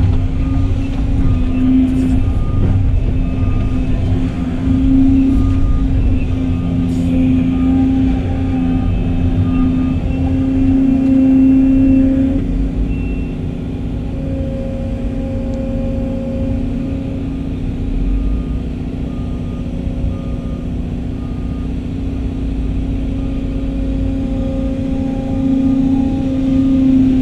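Volvo excavator's diesel engine and hydraulics working steadily, heard from inside the cab, as it digs and swings loaded buckets of sand over a dump truck; the engine note swells under load, strongest about ten seconds in. A faint high beep repeats at even spacing through much of it.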